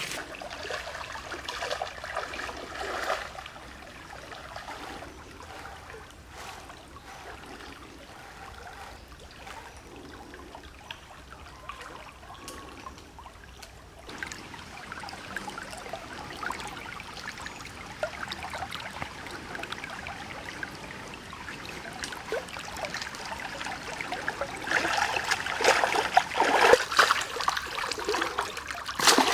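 Water trickling and splashing, with many small irregular splashes, growing louder and busier near the end.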